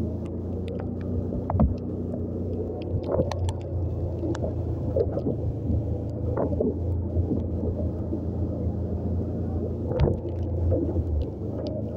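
Motorcycle engine running steadily while riding on a wet road: a low, even hum with scattered sharp ticks throughout.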